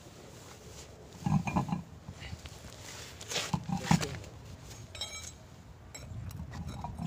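A man grunting with effort twice, about a second in and again about three and a half seconds in, straining at the tyre-change work. A light metallic clink about five seconds in.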